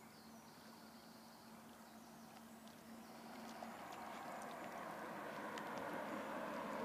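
Small waves lapping against the rocks of a lakeshore, growing louder about halfway through. A faint steady hum fades out around the same time.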